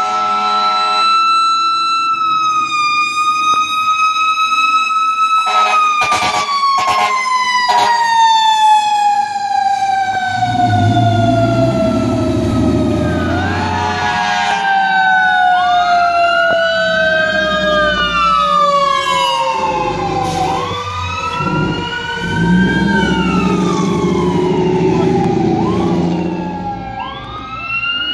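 Fire truck sirens: a mechanical siren holding a steady wail, then slowly winding down in pitch, with a few short horn blasts about six to eight seconds in. From about halfway through, an electronic siren wails up and down over the fading mechanical tone and the rumble of the truck's engine.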